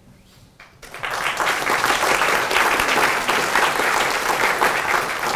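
Audience applauding, breaking out about a second in after a brief lull and then holding steady.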